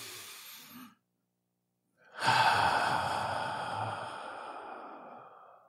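A man taking a deep breath: a short breath in, a pause of about a second, then a long breath out that fades away over three to four seconds.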